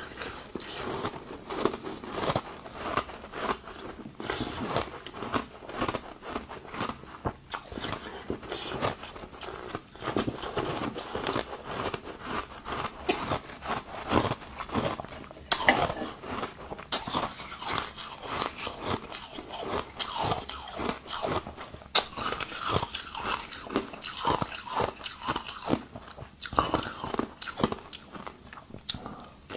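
Ice being bitten and chewed close to the microphone: a continuous crunching and crackling, with a few louder sharp cracks from harder bites.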